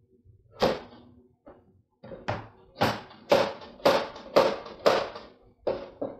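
Knife chopping potato on a cutting board: one chop, then a steady run of chops about two a second.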